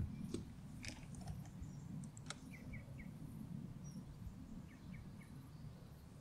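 Faint outdoor ambience: a steady low rumble with a few soft clicks, and a small bird chirping in two short runs of three notes, about two and a half and five seconds in.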